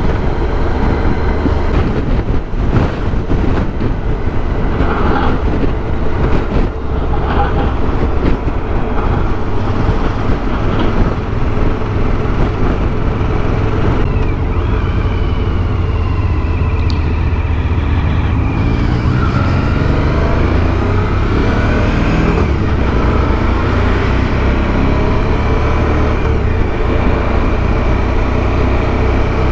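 Motorcycle engine running at road speed under steady wind rush on the microphone. A little past the middle the engine pitch climbs as the bike speeds up.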